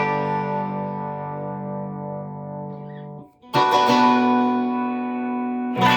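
Strat electric guitar strummed through its middle and bridge single-coil pickups together. A chord rings out and is stopped about three seconds in, then a new chord is strummed and rings, with another strum near the end.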